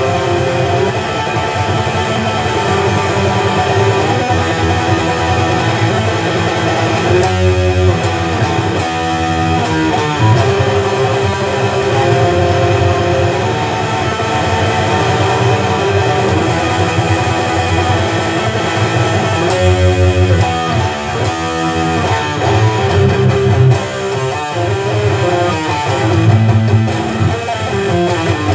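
Electric guitar playing a black-metal-style riff, the phrase repeating, with a run of quick note changes about eight seconds in and again about twenty seconds in.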